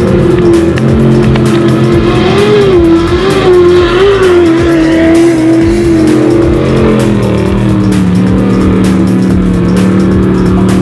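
Unlimited trophy truck's race engine running hard at high revs, its pitch wavering up and down about two to four seconds in, then holding steady. Music plays underneath.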